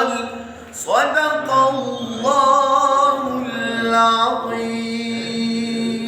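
A man chanting Qur'an recitation in melodic tajweed style, unaccompanied, with long held notes ornamented by wavering turns and a rising phrase about a second in.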